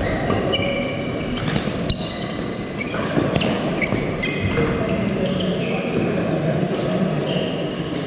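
Badminton play on an indoor court: frequent short shoe squeaks on the court mat and sharp racket strikes on the shuttlecock, the loudest strike about two seconds in, over the steady din of a busy hall.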